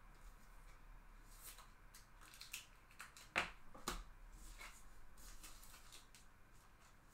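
Baseball cards being handled: faint rustling and light clicks, with two sharper snaps about three and a half and four seconds in.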